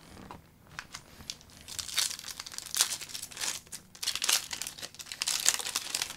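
Wrapper of a trading card pack being torn open and crinkled: a run of scratchy, crackling bursts that get busier about two seconds in.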